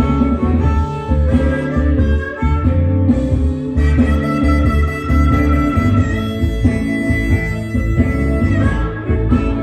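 Blues harmonica playing in A over a guitar accompaniment with a steady repeating bass pattern; about four seconds in the harmonica holds one long note for nearly five seconds.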